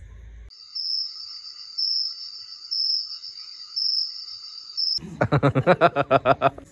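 Crickets chirping, a high trill that swells about once a second. About five seconds in, a short burst of rapid, loud laughter cuts in over it.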